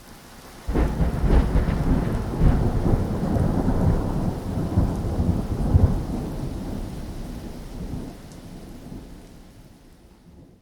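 Thunder in a rainstorm: a clap breaks in suddenly under a second in and rolls on as a long low rumble with a few sharper cracks, then slowly fades. Steady rain hisses underneath.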